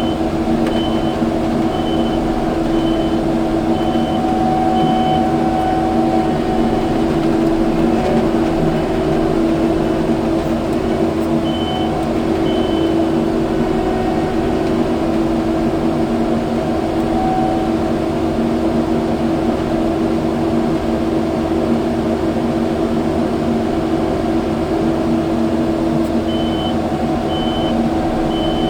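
Kubota skid steer's diesel engine running steadily under work. Its backup alarm beeps in short regular pulses in the first few seconds, briefly about twelve seconds in, and again near the end as it reverses.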